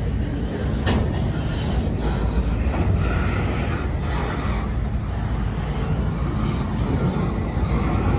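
Double-stack intermodal freight train's well cars rolling past close by: a steady rumble of steel wheels on the rails, with a sharp clank about a second in.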